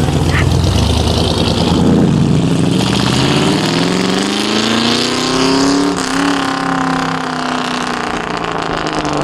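Muscle car engine with a deep low rumble, then accelerating in one long pull: its pitch rises smoothly from about two and a half seconds in, peaks around six seconds in, then drops slowly as it eases off.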